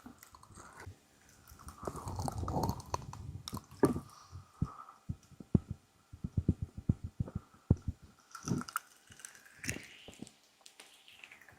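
Fingers rubbing and tapping on the ears of a binaural ASMR microphone, close up: irregular taps and thuds with a longer stretch of rubbing about two seconds in.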